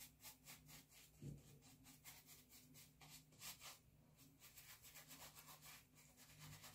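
Very faint, soft rubbing of a shaving brush working lather over a beard, in quick repeated strokes; otherwise near silence.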